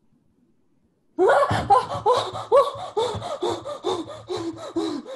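A woman laughing loudly in a rapid, rhythmic string of 'ha' bursts, about three a second, starting a little over a second in.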